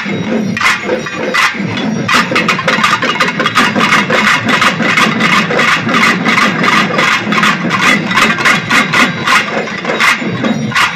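Pambai, the Tamil folk paired cylindrical drums beaten with sticks, played together by a large troupe. A few spaced strokes give way about two seconds in to a fast, dense, continuous roll.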